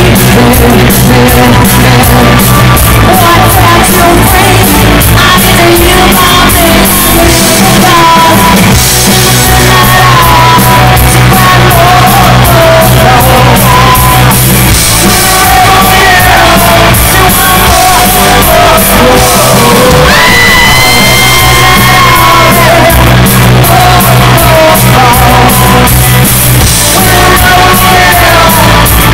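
Live rock band playing very loud in a hall: a woman singing into a microphone over drums, cymbals and electric guitar, with one long held note about two-thirds of the way through.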